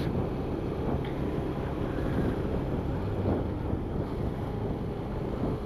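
Motorcycle under way at road speed: a steady low engine drone mixed with wind rumbling over the camera's microphone.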